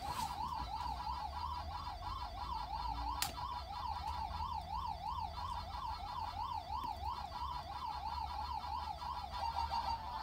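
Warbling siren, one tone whose pitch sweeps up and down about three times a second without a break. A single sharp click about three seconds in.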